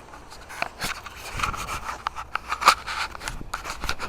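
Handling noise from a phone camera clipped to the chest: scraping and rustling against clothing, with irregular clicks and a sharper knock near the middle, as the wearer starts walking.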